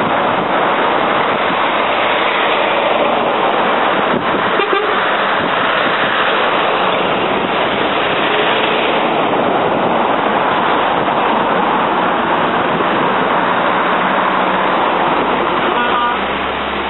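Scania trucks and cars driving past on a road, heard as a steady rush of engine and tyre noise mixed with wind on the microphone.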